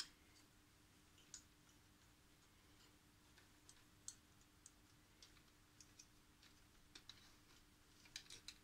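Faint, scattered small clicks and ticks of fingers handling cables and pushing plastic connectors into place inside a radio transceiver's metal chassis, with a quick run of clicks near the end.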